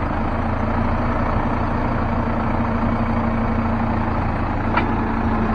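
CAT 308C excavator's diesel engine running steadily at a low idle-like pace, with one brief click near the end.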